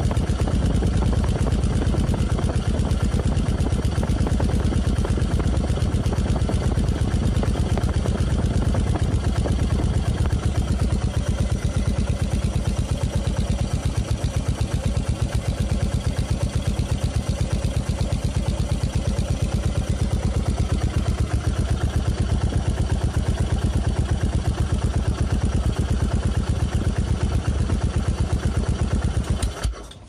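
Yamaha SR400's air-cooled single-cylinder four-stroke engine idling steadily through its silencer, freshly repacked with glass wool, with a rapid even beat of exhaust pulses. It stops abruptly near the end.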